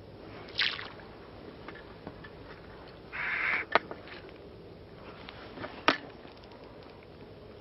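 Fly line of a spey rod being cast: two short hissing swishes, one about half a second in and a longer one about three seconds in, with two sharp clicks near four and six seconds.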